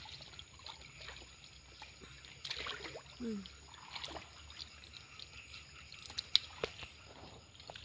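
River water sloshing and trickling, with small splashes and clicks, as a person wades chest-deep through it.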